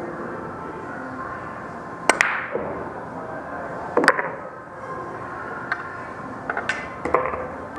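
Pool shot: the cue tip strikes the cue ball about two seconds in, with a sharp double click as the cue ball hits the object ball. A louder ball click follows about two seconds later, then a run of lighter clicks as balls carry on around the table, over a steady room hum.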